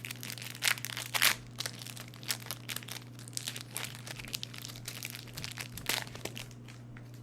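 Foil wrapper of a Pokémon card booster pack crinkling and tearing as it is opened: irregular crackling with a few louder rips, about a second in and again near the end.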